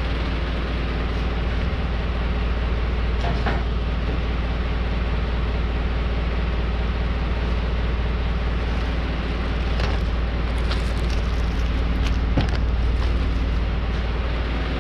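Steady low rumble and hum, with a few short knocks and the rustle of a padded moving blanket being pulled off a metal bullbar.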